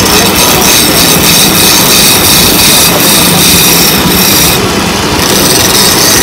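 Motor-driven wood lathe running while a hand-held chisel cuts into the spinning wooden blank, a loud continuous scraping with a steady machine hum beneath, easing briefly about two-thirds through.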